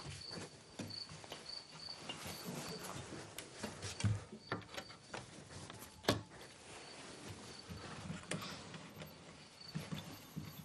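Faint crickets chirping in short, repeated high-pitched pulses, with a few soft knocks and one sharper click about six seconds in.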